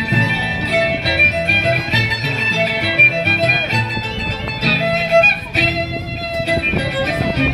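Live folk music: a violin playing a lively melody over a plucked-string accompaniment with a stepping bass line.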